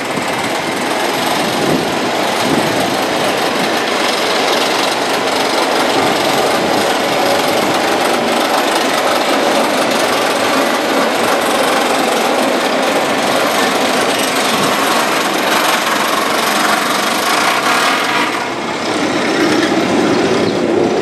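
Steel roller coaster train running along its track, a loud steady mechanical noise that eases briefly near the end.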